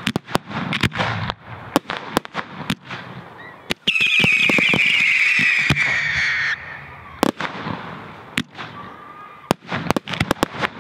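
Fireworks going off: a rapid run of sharp bangs and crackles from shells and ground-launched effects. From about four seconds in, a loud whistling firework screams for two and a half seconds, its pitch falling slightly, then cuts off suddenly. The bangs and crackles go on after it.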